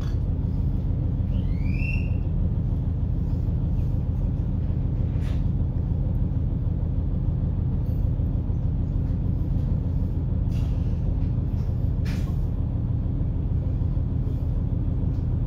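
Diesel railcar idling at a standstill, heard from inside the car: a steady low rumble with a faint steady hum. Three short hisses of air break through, the last one near the end.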